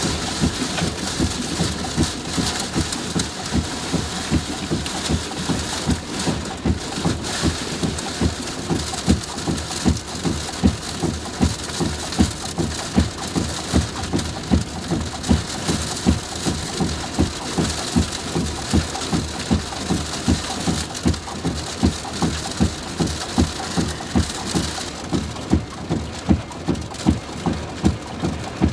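Severe thunderstorm rain and wind lashing a vehicle, heard from inside, with a steady rhythm of low thumps more than once a second beneath the hiss. The rain hiss eases about 25 seconds in.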